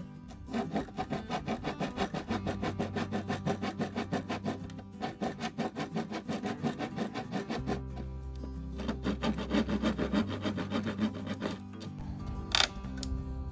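Narrow keyhole saw cutting through plywood by hand, several rapid back-and-forth strokes a second, in two runs with a pause between, then a sharp knock near the end. Background music with steady bass notes plays throughout.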